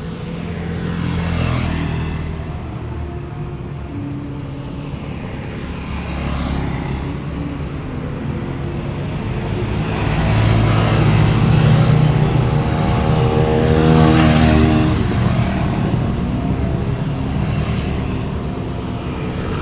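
Road traffic with vehicles passing one after another, each swelling and fading as it goes by. The loudest pass, with a pronounced engine note, comes about two-thirds of the way through.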